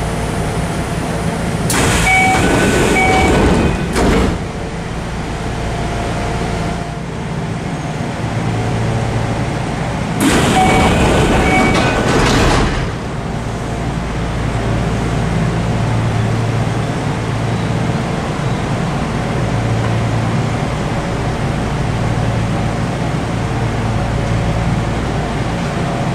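Sliding passenger doors of a Kintetsu 1031 series train working twice, each time with a loud rush of noise and two short beeps. The first ends in a sharp stop about four seconds in, and the second comes about ten seconds in. Between and after, the stopped train's equipment keeps up a steady low hum.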